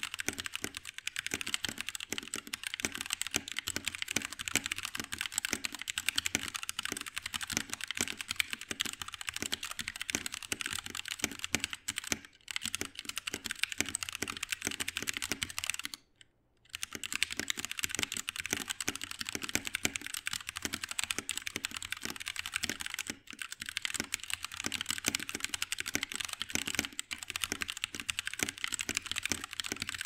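Fast, continuous typing on a Blitzwolf BW-KB1 60% mechanical keyboard with red linear switches: a dense run of key clacks that breaks off for about half a second a little past the middle.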